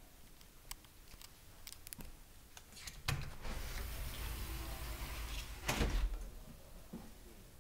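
Aluminium-framed glass balcony sliding door slid open on its track. A click about three seconds in, then a rolling, rumbling slide for about two seconds, ending in a loud knock as the door reaches its stop. Lighter clicks and knocks come before it.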